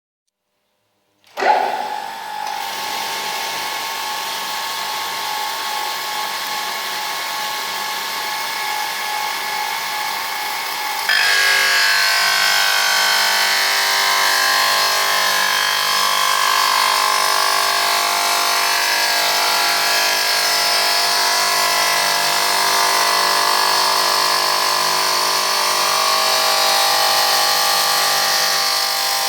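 Electric motor of a wet ceramic and stone cutting machine starting suddenly about a second in and running with a steady whine. About eleven seconds in the sound jumps louder and harsher, with a high grinding hiss, as the blade starts cutting.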